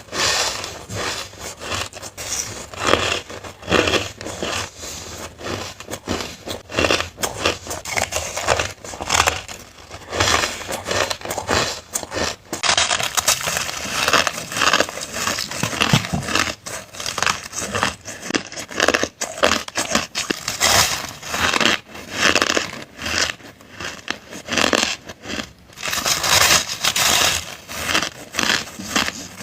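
A person biting and chewing hard crushed ice close to the microphone: a dense, unbroken run of crunches and crackles.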